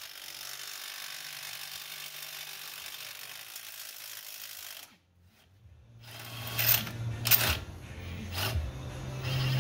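Hand tools working on a Jeep's suspension hardware: a steady hiss for about five seconds, then, after a short break, a low hum with three sharp metallic clanks.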